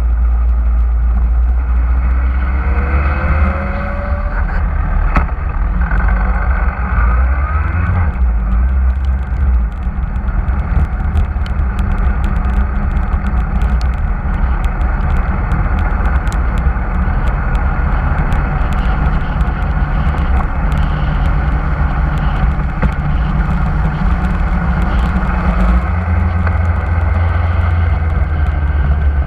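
Motorcycle engine running on the move, under a heavy low rumble of wind on the microphone. About three seconds in, the engine note climbs briefly as it accelerates.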